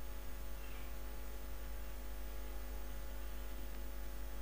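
Steady electrical mains hum: a low buzz with a stack of even overtones that stays unchanged throughout.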